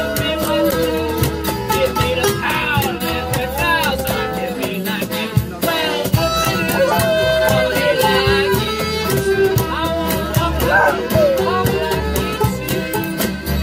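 A band playing music: a gliding melody line over strummed chords and a steady beat.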